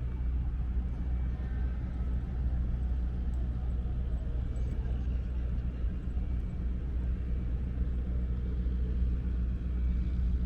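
Wind buffeting the microphone: a steady low rumble outdoors on a windy street.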